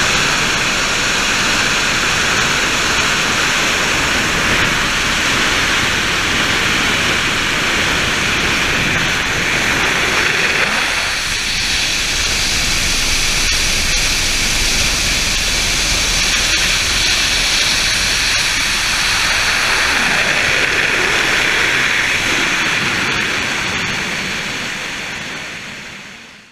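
Helicopter in flight heard from inside the cabin: steady engine and rotor noise with rushing air, changing in tone about halfway through and fading out over the last couple of seconds.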